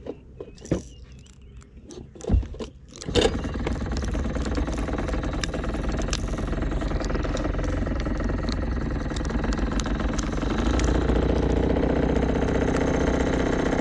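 A few clicks and knocks, then a boat engine starts about three seconds in and runs steadily, growing a little louder near the end.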